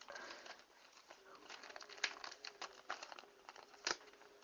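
Packaging crinkling and rustling as it is handled and opened, in irregular small crackles, with one sharper click near the end.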